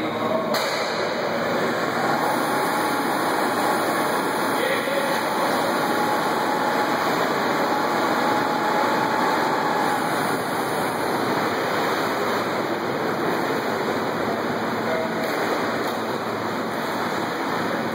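Helicopter dunker (underwater egress trainer) lowered into a training pool and rolling under, heard as a steady rushing, water-like noise with no single splash standing out.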